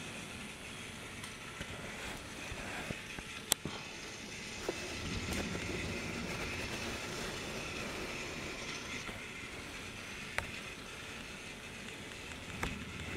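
A battery-powered Trackmaster motorized toy engine running along plastic track: a steady small-motor whir with a few sharp clicks.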